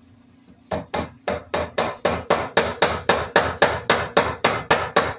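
A hammer driving a cable staple into a wooden stud: a steady run of quick blows, about four a second, starting about a second in.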